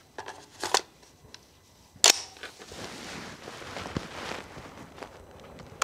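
Springfield Armory Saint Victor .308 AR-10 style rifle being loaded. A magazine clicks into the magwell, then about a second later the bolt slams home with a sharp, loud metallic clack, chambering a round.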